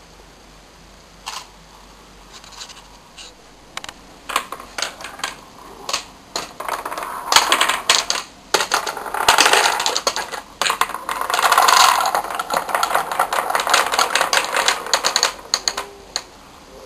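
Balls of a large wooden rolling ball clock rolling along and dropping between its wooden rails: scattered clicks that build into a fast, dense clatter, which stops shortly before the end.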